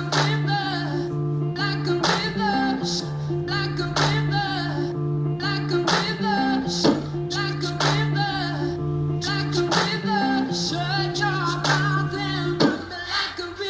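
Rock song playing: guitar and a singing voice over a steady beat.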